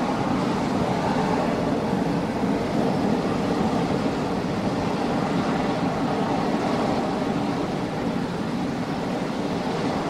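Grumman F-14 Tomcat's twin jet engines running with a steady roar and a faint steady whine.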